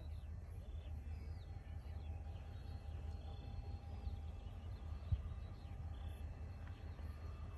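Rural outdoor ambience: faint bird chirps over a steady low rumble, with a single sharp knock about five seconds in.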